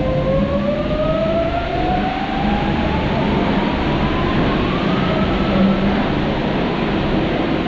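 Rubber-tyred MP14 Paris Metro train accelerating: its variable-frequency traction drive gives a whine that rises steadily in pitch for about six seconds, over the steady rumble of the moving train.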